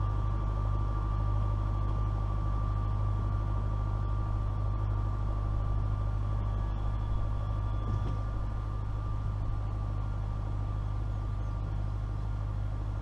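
Case IH MX100C tractor's diesel engine running steadily while pulling a plastic mulch layer, a constant low drone with a thin steady whine above it.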